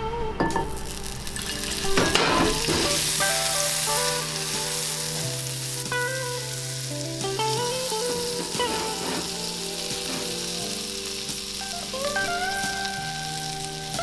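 Butter sizzling and bubbling as it melts in a preheated frying pan. The sizzle swells sharply about two seconds in, then holds steady.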